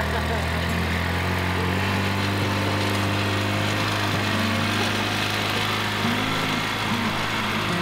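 Polaris Ranger utility vehicle's engine running steadily as the UTV drives slowly across a grassy field, a constant low hum.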